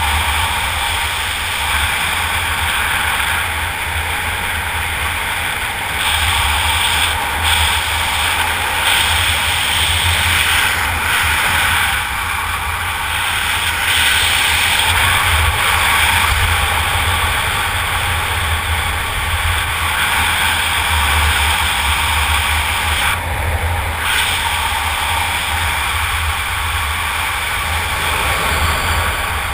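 Steady wind rushing over a helmet camera's microphone during flight under an open parachute, with a deep, fluctuating rumble of buffeting under a hiss.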